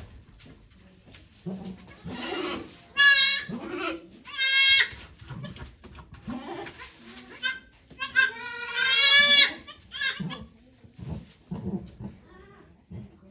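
Goat bleating: two short loud wavering calls about three and four and a half seconds in, then a longer one from about eight to nine and a half seconds, with quieter low sounds between them.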